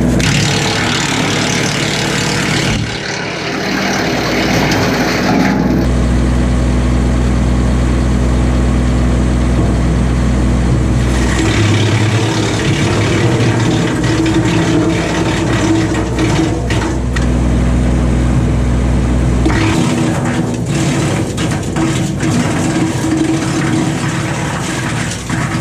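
Kubota LX2610 compact tractor's three-cylinder diesel engine running at working speed, driving a 4-inch BECO PTO wood chipper. The running note and level shift several times, and sharp cracks come in the last few seconds.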